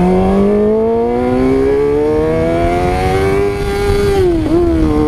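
Honda CBR600RR's inline-four engine pulling hard under full-throttle acceleration, its pitch rising steadily for about four seconds, then dropping sharply in a quick upshift near the end before climbing again.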